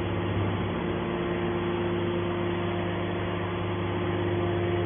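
Hydraulic baler's power unit, the motor and pump running with a steady hum.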